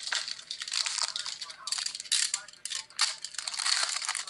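Plastic wrapping on a trading-card pack crinkling and tearing as it is opened by hand, in a run of uneven rustles with short pauses.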